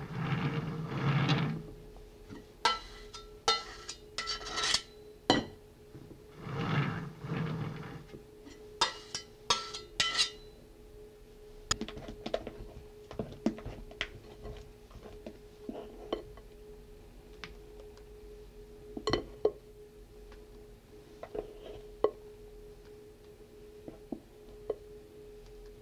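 Metal palette knife scraping over cream on a sponge cake, then a spatula clinking against a glass mixing bowl in two quick runs of sharp, slightly ringing taps as whipped cream is stirred, followed by scattered softer taps.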